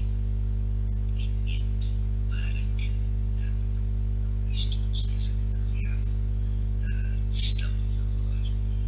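Steady low electrical mains hum with evenly spaced overtones, overlaid by short, faint high-pitched chirps and squeaks that come and go, the strongest about seven and a half seconds in.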